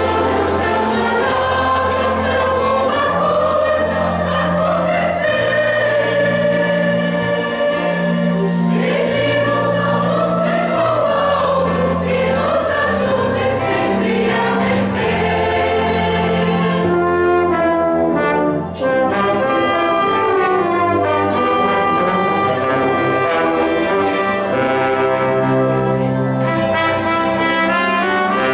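Church choir singing a hymn, accompanied by a small orchestra of violins and brass, with a brief break in the sound about two-thirds of the way through.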